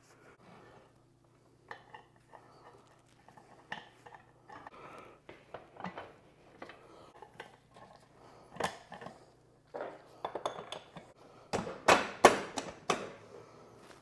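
Irregular metallic clinks and knocks as a motorcycle rear wheel and its hardware are worked back into the swingarm, with a run of louder clanks near the end.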